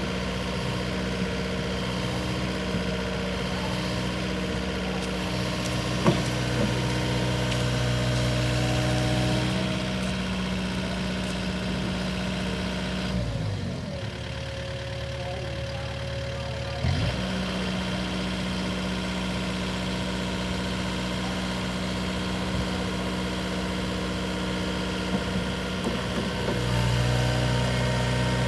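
Kubota KX080-4a excavator's diesel engine running steadily. Its speed drops for a few seconds about halfway through, then picks back up, with an occasional knock.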